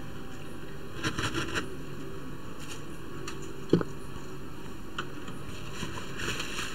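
Steady low background hiss with a few faint clicks and rustles about a second in, and one sharper click in the middle.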